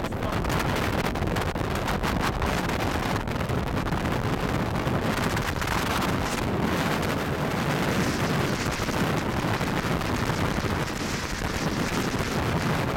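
Wind buffeting the microphone over the steady rush of an inflatable boat running across choppy water, an even, unbroken roar with no distinct engine note standing out.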